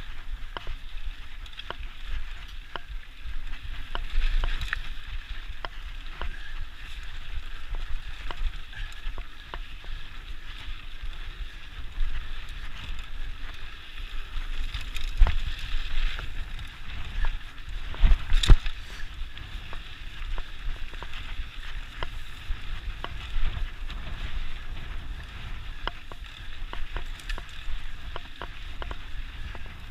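Mountain bike riding a dry dirt singletrack: steady tyre noise on the trail and wind noise, with frequent small knocks and rattles from the bike jolting over bumps, the hardest about 15 and 18 seconds in.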